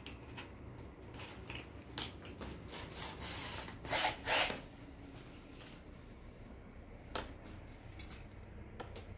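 Handling noises: scattered clicks and rubbing, with two short rattles about four seconds in, as a cordless drill is carried to a wall and plastic clothes hangers on a rail are pushed aside. The drill's motor does not run.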